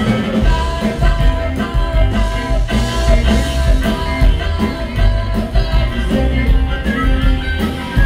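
Live reggae band playing, with a harmonica holding long notes over electric guitars, upright bass and drums.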